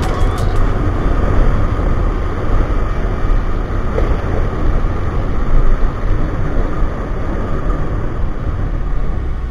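Heavy wind rushing over the microphone, with the Honda CG-125's single-cylinder four-stroke engine running steadily at cruising speed beneath it.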